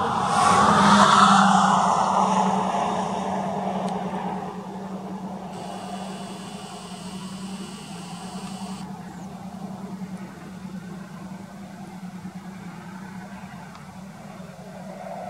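A road vehicle passing by, swelling to its loudest about a second in and fading away over the next few seconds, over a steady low hum. A smaller swell begins near the end as another sound approaches.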